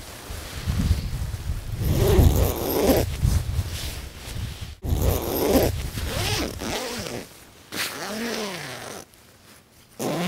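Side zipper of a The North Face Blue Kazoo down sleeping bag being unzipped in several separate pulls, some with a short rising-and-falling zip tone.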